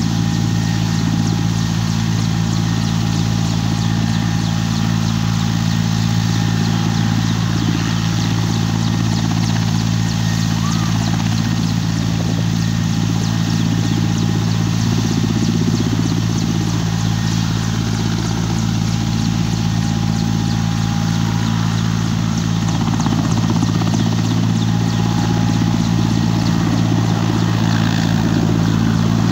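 Ambulance helicopter running steadily on the ground: a loud, constant low engine and rotor hum.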